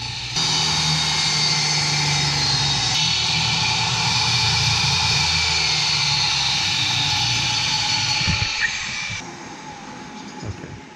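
Table saw running and cutting a fibreboard panel: a steady high whine over a low hum, which stops about nine seconds in.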